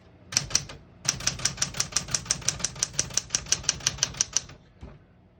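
1974 Smith-Corona Galaxie Twelve manual portable typewriter being typed on: a few key strikes, then a quick, even run of about eight keystrokes a second for some three seconds. The keys type cleanly, with none skipping or sticking.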